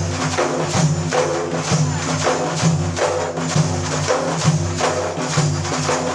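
Instrumental break in a sad Iraqi ataba song: a steady hand-percussion beat, with frame-drum or tambourine strokes about two to three times a second, under sustained melodic notes.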